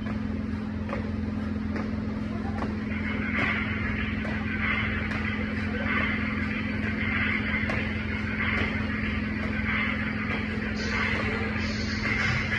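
A steady low hum, with faint thuds at irregular intervals from feet landing on a hard floor during jumping exercises.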